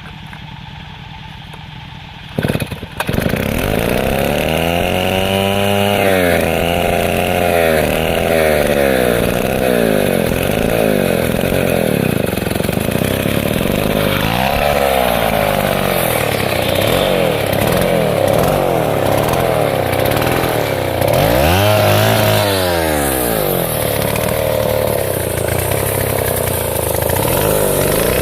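Stihl two-stroke chainsaw idling, then opened up to full throttle about two and a half seconds in. Its pitch then repeatedly dips and recovers as it cuts into teak.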